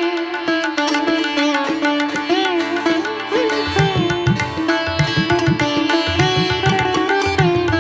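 Indian-style instrumental background music: a plucked string melody with notes that bend in pitch over a steady drone, with low drum strokes coming in about four seconds in.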